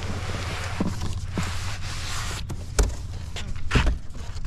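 Cardboard shipping box and packaging being handled and pulled off: a stretch of papery rustling and scraping, then two knocks in the second half, the later one a heavier low thump.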